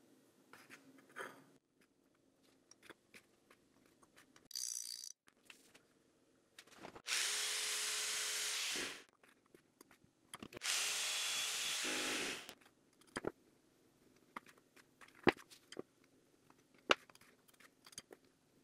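A handheld power tool runs steadily twice, about two seconds each time, with a short pause between. A few sharp separate clicks or taps follow near the end.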